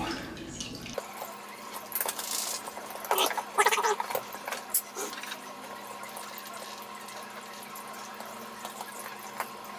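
Faint handling noise of a bullet security camera's mount being screwed to a wall: light scrapes and clicks of a screwdriver and screws, with shirt fabric rustling, mostly in the first half. Under it runs a faint steady hum.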